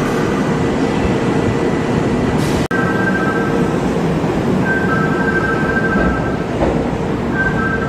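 Steady rumble and hum of Kintetsu electric commuter trains at a station platform. A few brief, steady high two-note tones sound in the second half.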